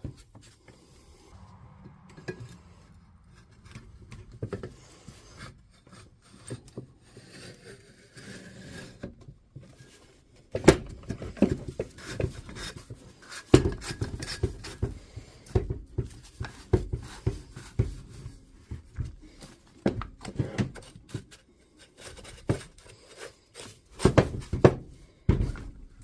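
Hands working parts of a rotary hammer's mechanism: faint rubbing at first, then, from about ten seconds in, many irregular small knocks and clicks of parts being handled and fitted together.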